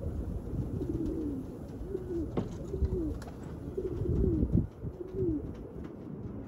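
Domestic pigeons cooing, a string of short coos that rise and fall in pitch, about one a second, over a low rumble of wind on the microphone.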